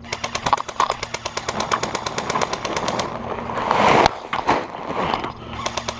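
Airsoft rifle firing full-auto: a rapid, even stream of about fourteen shots a second for roughly three seconds, then another burst near the end. In between, a rustling scrape of gear against the microphone.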